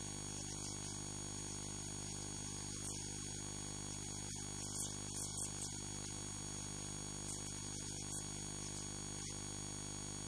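Steady electrical mains hum in the recording: a buzz with many evenly spaced overtones at an even level, with a few faint crackles about halfway through.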